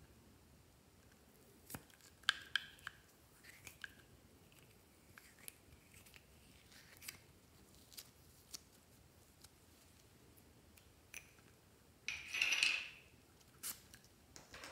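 Small plastic container of clay being handled and opened: scattered light clicks and taps of plastic, with a brief louder scraping, rustling sound about twelve seconds in.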